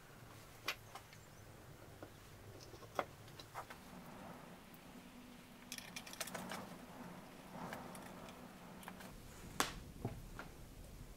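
Turned wooden pieces handled and fitted together onto a pin: scattered light wooden clicks and knocks with hand rustle, a cluster of clicks about six seconds in, and the sharpest knock near the end.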